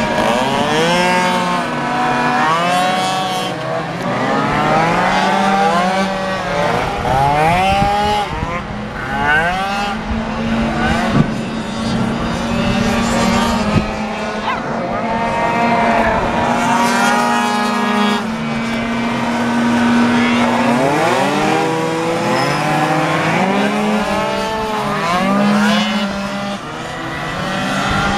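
Several tuned two-stroke racing scooters running hard around a tight circuit, their engine notes overlapping and rising and falling over and over as they brake for corners and accelerate out.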